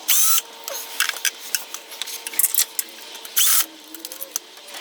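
Socket ratchet clicking in short, irregular spells with metallic clinks as the 10mm bolts on the automatic transmission pan are loosened.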